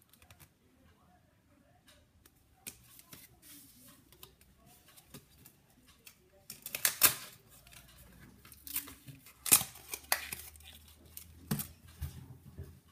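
A cardboard cream cheese box being handled and torn open: scattered clicks, rustling and crinkling, with the loudest tearing bursts about halfway through and again a couple of seconds later.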